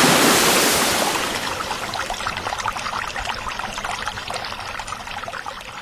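A splash as a handful of chillies drops into water, followed by bubbling and trickling that slowly fades away.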